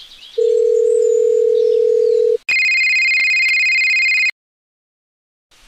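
Telephone tone sound effect: a steady low dial tone for about two seconds, then a higher, brighter electronic tone for about two seconds, then it cuts off into silence.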